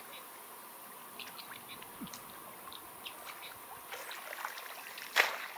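Light water trickling and small splashes, with scattered soft clicks, then one sharp knock about five seconds in.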